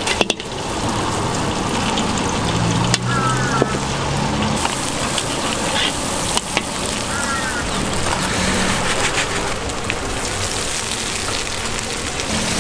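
Curry paste frying in hot oil in a steel wok: a steady sizzle that turns brighter and hissier about four or five seconds in, with a few sharp clicks.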